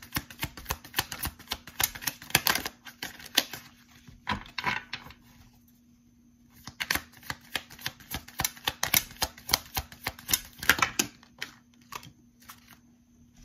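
A deck of tarot cards being shuffled by hand: rapid runs of crisp card clicks in two long spells with a short pause and a shorter spell between them. A few scattered snaps of cards follow near the end.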